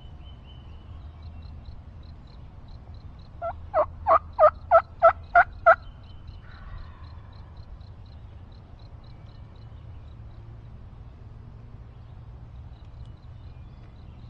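Wild turkey calling: a single loud run of about eight evenly spaced notes lasting about two seconds.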